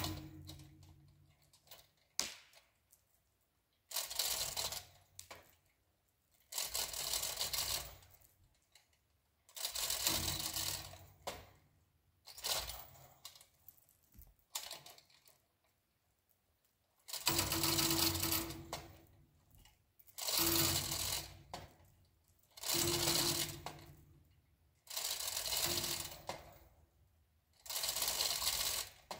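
A 2-ton manual chain fall (chain hoist) being worked in repeated pulls: the chain and ratchet clatter in bursts of a second or two, about every two to three seconds, as the line to a leaning tree is drawn tight.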